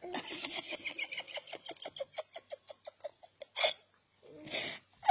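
A baby's rapid string of short, high-pitched vocal sounds, about five a second for some three and a half seconds, ending in a louder one. A breathy sound follows near the end.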